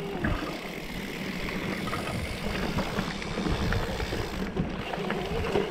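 Mountain bike rolling down a dirt singletrack, heard from a camera on the handlebar: a continuous rush of tyre and trail noise with frequent small knocks and rattles from the bike over bumps.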